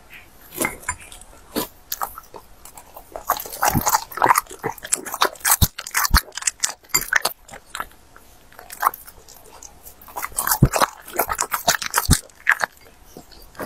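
French bulldog chewing and crunching cabbage leaves fed from chopsticks: wet, crackly bites in quick runs, mostly in two spells a few seconds apart, with short pauses between.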